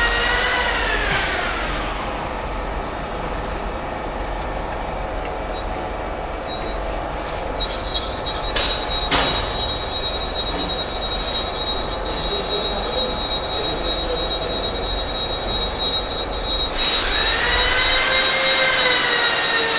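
Whine of a machine in an engine repair workshop. Its pitch falls over the first two seconds as it slows. A thin, steady high tone holds through the middle, with a couple of short clicks, and the whine rises again near the end as the machine speeds back up.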